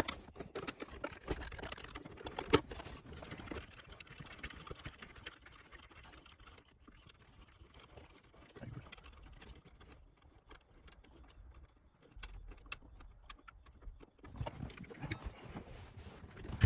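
Faint, irregular clicks and light rattles of hand tools and plastic and metal shifter parts being handled and worked loose, with a sharper knock about two and a half seconds in.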